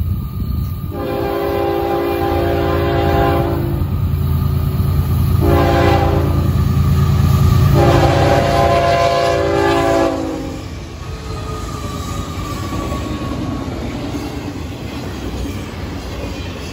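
Florida East Coast Railway freight train's lead GE ES44C4 locomotive sounding its multi-chime horn in a long, a short and a long blast, the close of a grade-crossing signal. The diesel engine rumble swells as the locomotives pass close by. After about ten seconds the horn stops and the steady rolling clatter of the autorack cars takes over.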